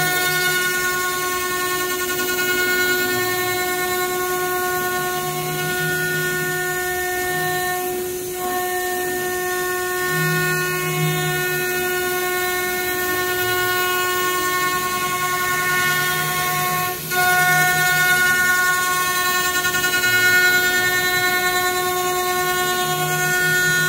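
5-axis CNC router's spindle running with a steady high whine while it machines a wooden workpiece, with a lower hum that swells and fades as the head moves and tilts. The whine dips briefly twice, about 8 and 17 seconds in.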